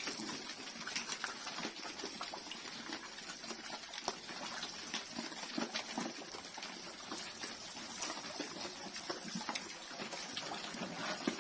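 A group of pigs slurping and chomping wet feed from a tyre trough, with many small wet clicks, while a spray of water splashes over them and into the trough.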